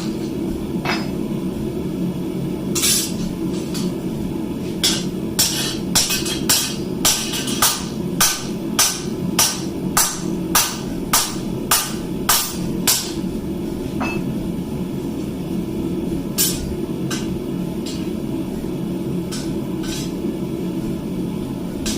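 Blacksmith's hammer striking hot steel on the anvil, a steady run of blows about two a second for several seconds, then a few scattered strikes, over background music.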